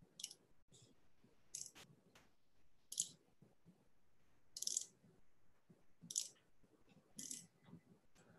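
Faint, short scratchy strokes of a stylus writing by hand, about seven strokes spread out, with a couple of sharp clicks about two seconds in.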